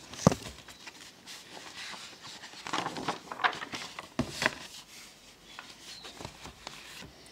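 Scattered soft clicks, taps and short rustling noises at an uneven pace, with no voice.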